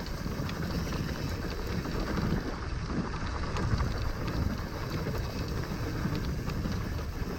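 Wind buffeting the microphone over the steady rumble of a downhill mountain bike's tyres rolling on a dry dirt trail, with light clicks and rattles from the bike.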